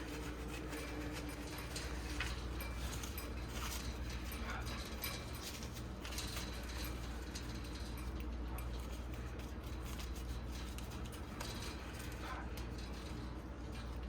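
A few brief squirts of a spray bottle of disinfectant and light handling clicks over a steady low hum.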